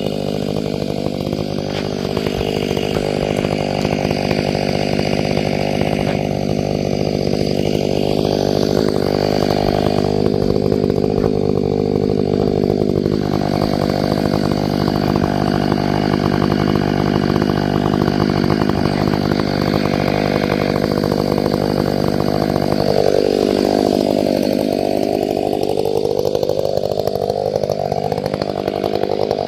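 Ported chainsaw with a 28-inch bar running at full throttle through a log, its engine pitch dipping and recovering a couple of times as it loads up in the cut.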